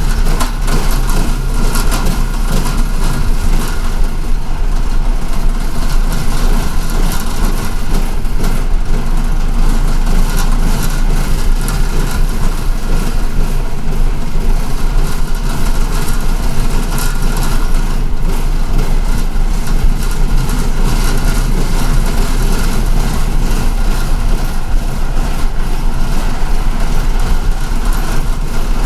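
MTA city bus running, heard from inside the cabin: a steady low engine drone with a few steady whining tones over it and occasional brief rattles.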